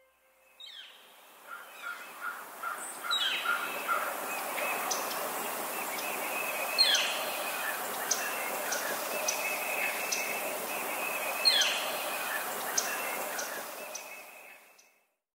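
Outdoor bird ambience: several birds chirping and calling over a soft, even background hiss. It includes a quick run of repeated notes early on and a few sharp calls that sweep downward. It fades in at the start and fades out near the end.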